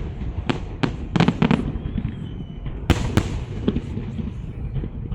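Fireworks salute going off: a series of sharp bangs, with a quick run of crackling about a second in and more bangs from about three seconds on, over a steady low rumble.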